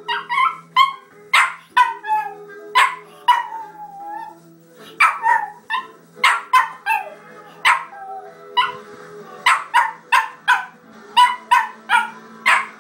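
A chihuahua barking over and over in sharp, high yaps, a few of them trailing off into a falling whine. He is set off by television theme music, which plays faintly underneath.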